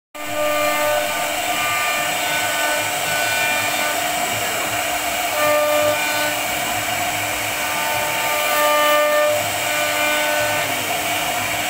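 CNC router spindle running with a carving bit cutting into a wooden panel: a loud, steady whine and cutting noise. Short held tones come and go at changing pitches every second or so as the head moves.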